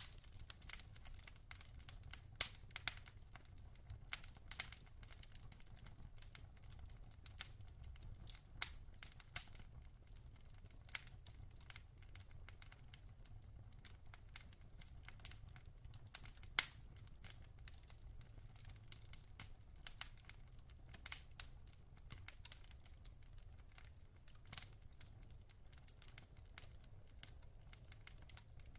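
Log fire crackling: irregular sharp pops and snaps, several of them louder, over a steady low rumble.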